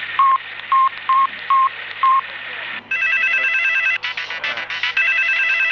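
Five short electronic beeps, then a mobile phone's electronic ringtone: a warbling multi-tone trill that starts about three seconds in and is still ringing at the end.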